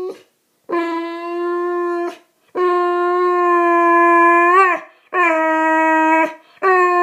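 Boxer dog howling in long, drawn-out calls at a steady pitch, three in a row with short breaks between and a fourth starting near the end; the middle one is the longest and wavers at its close. It is the dog's attention-seeking howl.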